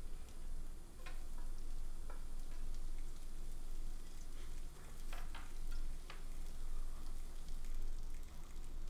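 Garlic and onion frying in oil in a nonstick pan: a steady sizzle with scattered small crackles.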